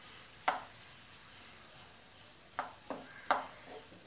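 Metal spoon stirring grated coconut into diced carrots in a nonstick frying pan, with a faint steady sizzle and four sharp scrapes against the pan: one about half a second in and three close together near the end.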